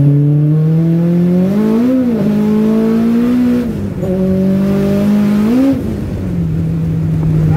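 Turbocharged Honda H22 VTEC four-cylinder in a Prelude under hard acceleration, heard from inside the cabin. The engine note climbs steadily and breaks at each upshift, about two and six seconds in, then settles to a steady lower drone near the end.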